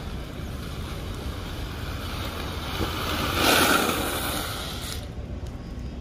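Inline skate wheels sliding sideways across wet asphalt in a slide stop: a hiss that swells, peaks about three and a half seconds in and dies away by five seconds. Under it is a steady low rumble of wind on the microphone.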